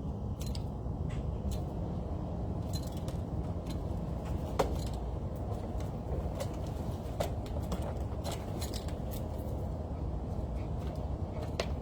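Steady low outdoor rumble with scattered light clicks and taps, one sharper tick about four and a half seconds in.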